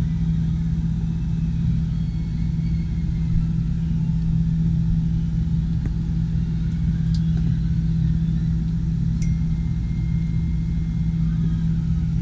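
A steady low mechanical hum, one constant deep tone with a rumble beneath it, with a few faint ticks and a faint thin whistle in the second half.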